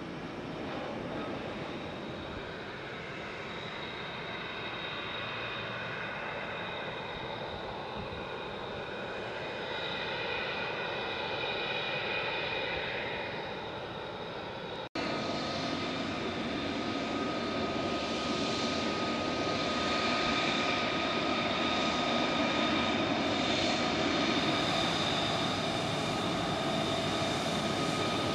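Single-engine F-35C Lightning II's F135 turbofan whining steadily at low power as the jet rolls and taxis, with a high, even whine over the engine's rush. After a short break about halfway through, it is louder and closer.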